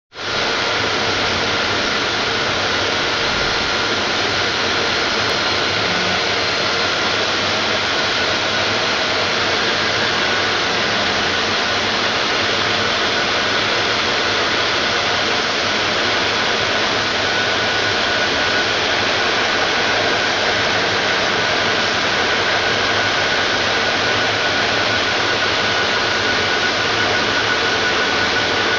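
Hinge edge polishing machine running, its abrasive belts making a steady hiss with a faint, steady whine above it.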